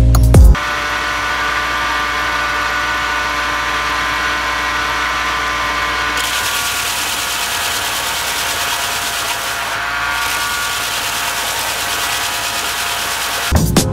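Belt grinder running with a steady motor and belt whine. About six seconds in a harsh hiss joins as a steel lawn mower blade is pressed flat against the abrasive belt, easing off briefly near ten seconds.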